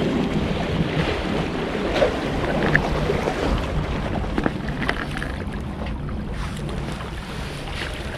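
Strong wind buffeting the microphone, over the wash of the sea against the rocks, with a few short clicks.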